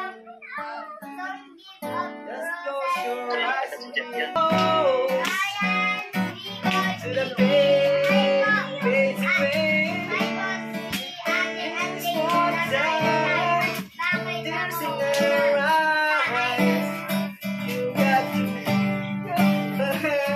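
Acoustic guitar strummed with a man singing along. The strumming grows fuller about four seconds in.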